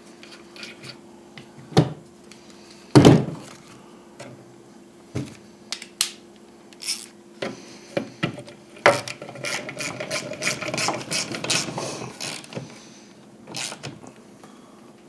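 Hand ratchet clicking rapidly as it runs down and snugs the nut holding the fan blade onto an electric cooling-fan motor shaft. Before that come a few separate knocks and clicks of the tool and parts, the loudest about three seconds in.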